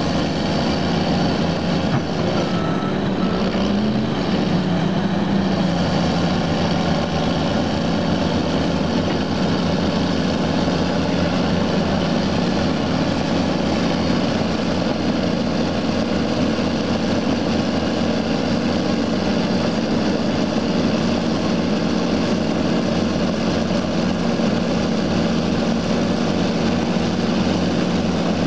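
Heavy diesel engines of a Caterpillar D6R crawler dozer and an excavator running hard together while the dozer is bogged down in deep mud. The engine note is steady, with a brief rise in pitch a few seconds in.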